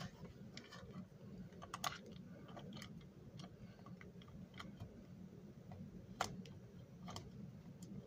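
Faint, scattered clicks and taps of a plastic S gauge model diesel shell being handled and seated on its chassis, a few sharper clicks among them.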